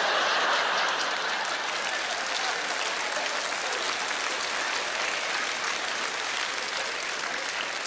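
Large audience applauding, loudest at the start and slowly tapering off.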